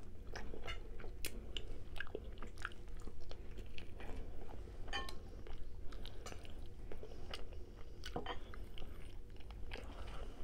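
Person chewing and biting rotisserie chicken eaten by hand, with many irregular sharp wet mouth clicks.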